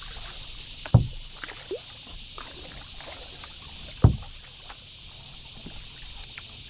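Kayak being paddled: two sudden thumps about three seconds apart as the paddle knocks the plastic hull, with a few faint drips and ticks between, over a steady high-pitched hiss.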